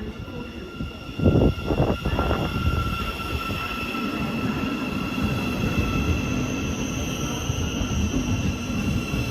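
Class 700 electric multiple unit pulling into the platform: low rumble with a steady high-pitched whine of several held tones, and three thumps a little over a second in.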